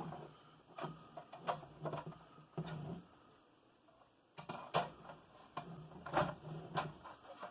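Scattered plastic clicks and knocks from handling a Ryobi 40V battery chainsaw, its plastic chain guard being fitted over the bar. There is a short lull partway through, then a quick run of clicks.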